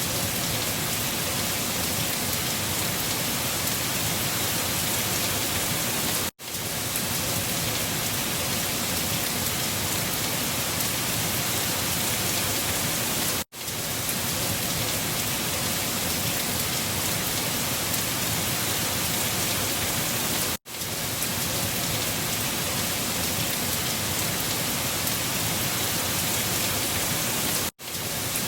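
Steady windstorm ambience: a dense, even hiss that drops out sharply for a moment about every seven seconds, four times, where a short recording loops.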